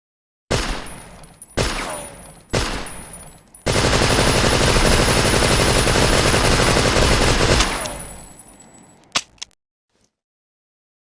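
Tommy gun (Thompson submachine gun) gunfire: three single shots about a second apart, each ringing out, then a rapid automatic burst lasting about four seconds that tails off in echo. A short sharp click follows near the end.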